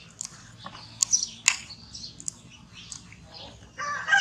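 Small birds chirping in the background, with a few sharp clicks, the loudest about a second and a half in.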